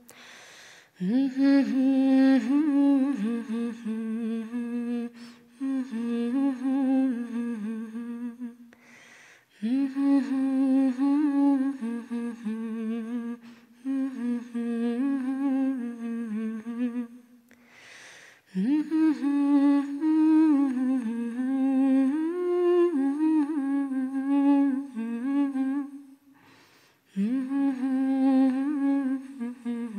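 A single voice humming a wordless melody in long phrases, with short breaks between phrases about every nine seconds.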